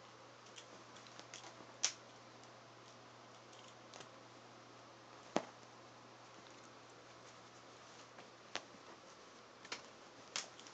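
A handful of sharp, isolated clicks and taps over a faint steady hum, a few seconds apart at first and coming closer together near the end.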